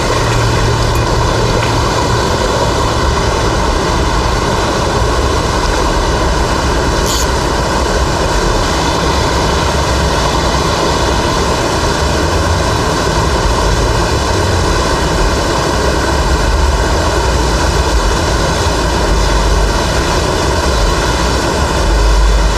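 Waterfall pouring into a deep stream pool: a steady, loud rush of water with a deep rumble underneath, the stream running high after rain.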